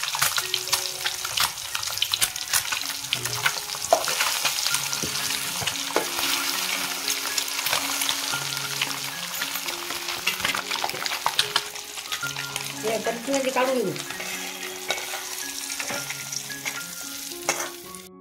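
Peeled boiled eggs frying in hot oil in an aluminium kadhai: steady sizzling with dense crackling.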